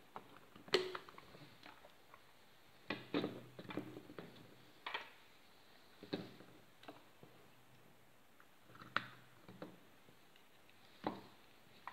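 Hard plastic clicks and knocks as a toy car's plastic battery-box remote control is closed and its cable plug connectors are handled and fitted. The clicks are irregular, with a quick cluster about three seconds in.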